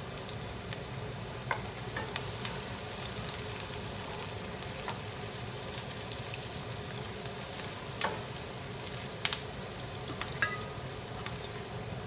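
Chopped ginger, garlic and onion sizzling in oil in a nonstick skillet, with a steady hiss. A wooden spatula stirs them, knocking against the pan a few times.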